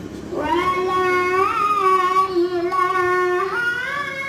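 A song playing, with a high singing voice holding long, slightly wavering notes and stepping up to a higher note about three and a half seconds in.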